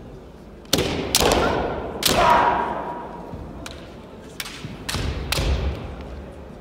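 Kendo fencing: sharp cracks of bamboo shinai strikes and thuds of stamping footwork on a wooden gym floor, about seven in all, in a burst about a second in and another about five seconds in, each ringing out in the hall. A loud shouted kiai rises with the first burst.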